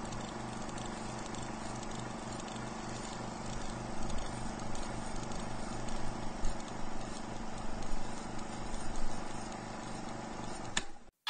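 Crowded music-venue ambience: a steady din with a muffled low pulse repeating about four times a second, and a few louder bumps in the second half. It cuts off suddenly near the end.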